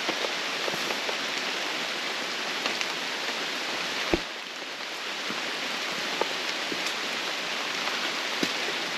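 Rain falling on rainforest foliage: a steady hiss with scattered drop ticks, and one sharper knock about four seconds in.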